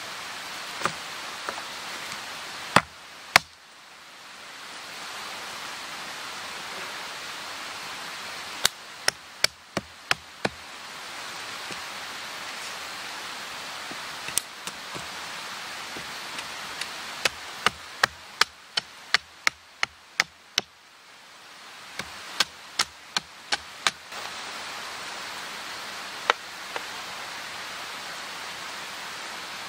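Axe chopping wood: sharp strikes in quick runs, from a few up to about a dozen at roughly two to three a second, with pauses between runs, over a steady rushing hiss.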